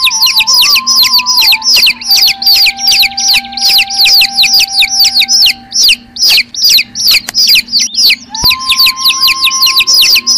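A crowd of baby chicks peeping, many short high calls each falling in pitch, overlapping several times a second.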